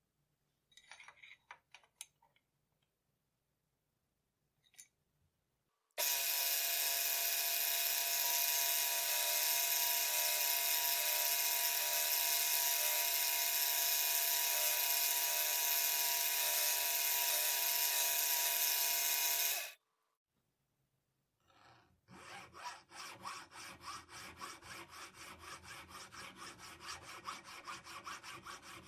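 A few light metallic clicks as the workpiece is set up in the vise, then a manual milling machine's end mill cutting a small metal part: a steady, high-pitched cutting sound for about fourteen seconds that stops abruptly. After a short pause, a hand file rasps across the part in quick, regular strokes.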